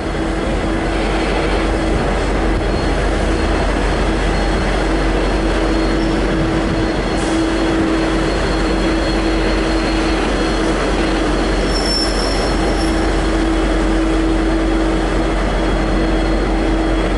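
V/Line N-class diesel-electric locomotive running steadily as it moves along the platform: a low engine rumble with a constant droning tone over it.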